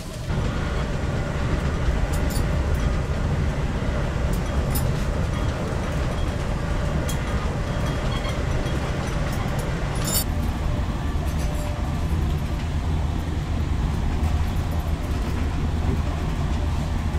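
Amtrak Acela train running at high speed, about 175 km/h, heard from inside a passenger car: a steady low rumble of wheels and car body, with a few sharp clicks scattered through it.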